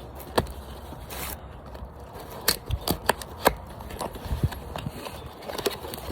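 Irregular clicks and knocks of a cardboard box and its packaging being handled and opened.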